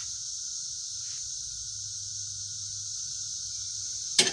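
Steady high-pitched chirring of insects, typical of crickets, with a faint low hum under it. Near the end a quick clatter of sharp metallic clinks.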